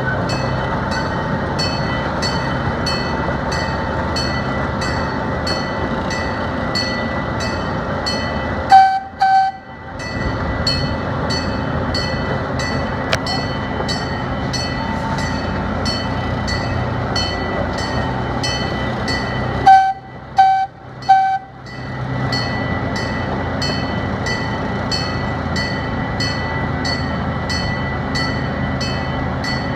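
Train running steadily with a regular clicking a little under twice a second. It sounds two short toots of its horn about nine seconds in, then three short toots about twenty seconds in.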